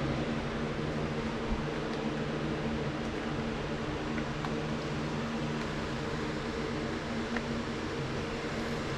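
A steady machine hum, like a fan or air conditioner running, with a few faint ticks.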